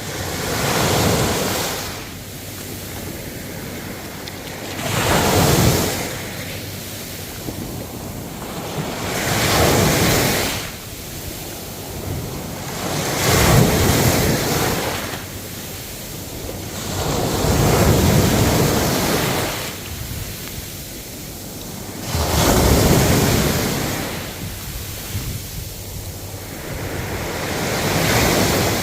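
Ocean waves breaking and washing ashore, surging in and easing off about every four to five seconds.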